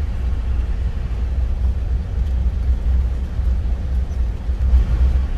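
Engine and road rumble heard inside the cab of an Isuzu Elf 4x4 campervan driving along a narrow road, steady and low-pitched.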